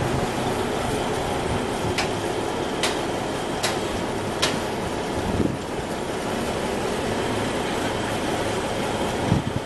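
Heavy diesel equipment running steadily during a rail-car re-railing job. From about two seconds in there are four sharp metallic clanks, evenly spaced a little under a second apart.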